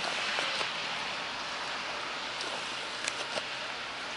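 Steady hiss of rain and wet outdoor noise, with a few short clicks about three seconds in.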